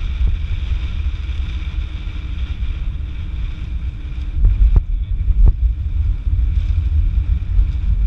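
Inside a moving car in a wind storm: a steady low rumble of road and wind noise while driving through heavy rain, growing louder and gustier about halfway through, with a few sharp taps in the middle.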